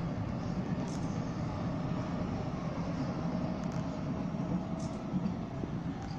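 Odakyu Line train running past Kyodo station: a steady low rumble with a faint whine, over city background noise.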